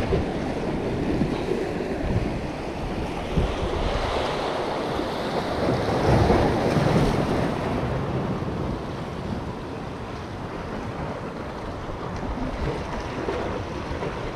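Sea waves washing, with wind buffeting the microphone; the rush swells about six seconds in and then eases.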